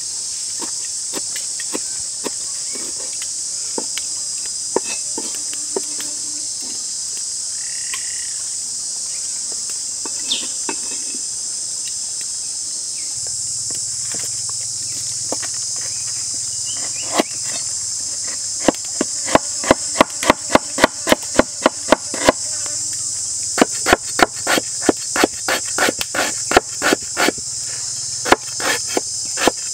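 Cleaver slicing a lemongrass stalk on a wooden chopping board. In the second half it makes rapid, even knocks at about four a second, with only scattered knocks before that. Throughout there is a steady, high drone of forest insects.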